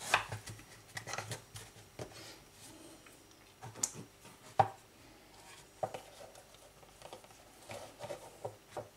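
Light scattered clicks and taps from a hinged plastic dumpling press being folded shut and squeezed to crimp a pastry pie, with hands handling it on a worktop; the sharpest click comes about halfway through.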